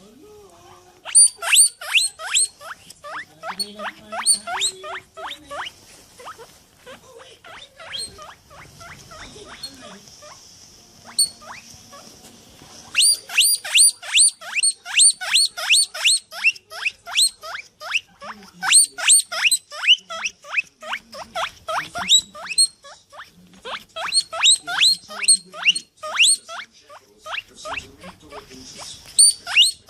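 Rapid runs of short, high squeaks, each falling sharply in pitch, about five a second, in bursts with short pauses between.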